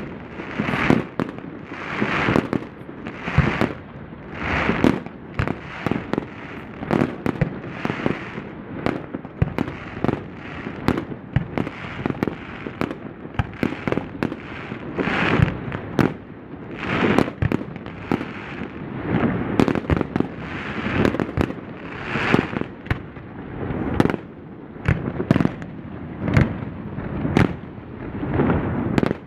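Fireworks display: aerial shells bursting in quick succession, sharp bangs several a second with crackling hisses between them.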